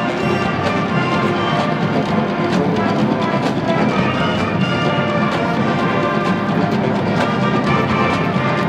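College marching band playing full out: brass horns sustaining chords over a steady beat of drum strokes.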